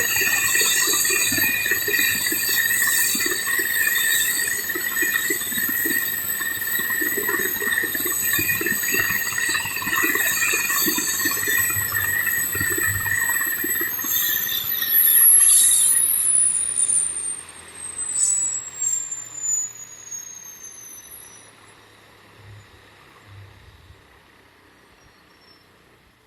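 Airbus EC145 helicopter's turbine engines whining steadily, then spooling down at shutdown: about halfway through, the high whine glides down in pitch while the rotor's low pulsing beat dies away and the sound fades to a faint hum.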